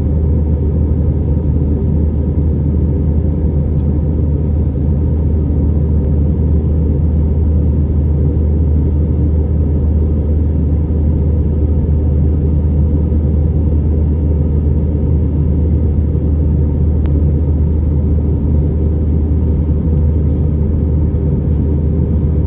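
Steady, loud rumble of engine and airflow noise heard inside the passenger cabin of an Airbus A320, unchanging throughout.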